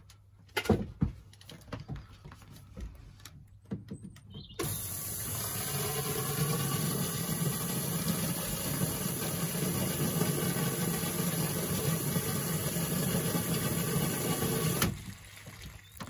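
Water from a hose pipe running steadily down newly fitted plastic washing-machine waste pipework as a leak test, starting abruptly about four and a half seconds in and cutting off suddenly about ten seconds later. A few light knocks and clicks come before it.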